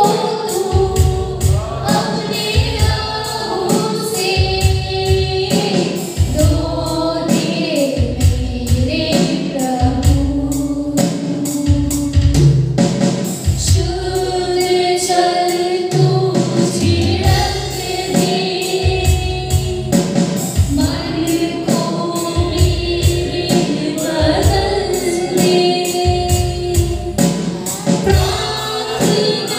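Two women singing a Hindi Christian worship song into microphones, amplified over backing music with a steady beat.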